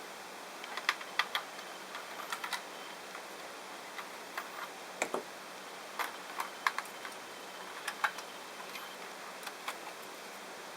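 Irregular light clicks and taps from small hard parts being handled, some in quick clusters, over a steady faint hiss.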